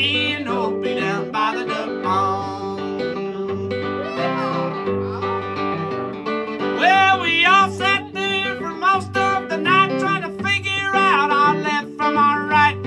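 Live country song on acoustic guitar, strummed in a steady rhythm with a repeating low bass part. From about halfway through, a lead melody line that bends in pitch plays over it.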